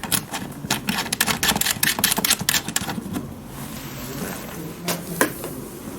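A rapid, irregular run of small clicks and rattles for about three seconds as cable plugs and plastic parts of a cavitation machine are handled, then two sharper clicks near the end.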